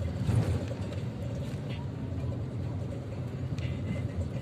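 Car driving in busy traffic, heard from inside the cabin: a steady low engine and road rumble, with a brief louder swell about half a second in.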